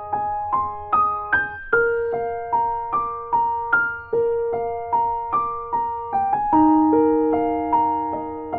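Outro music played on piano: a melody of evenly spaced single notes, about two to three a second, each left to ring.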